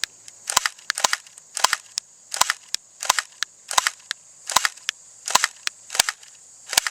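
Walther P99 electric (AEP) blowback airsoft pistol firing single shots on semi-automatic: about ten sharp snaps, each with a quick follow-up click, roughly one every three-quarters of a second.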